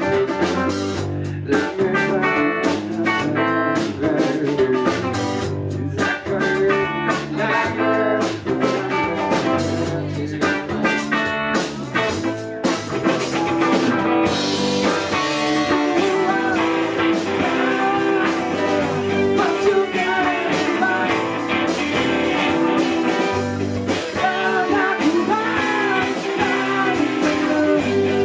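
Live band playing a song with guitar and drums. The sound grows fuller and brighter about halfway through.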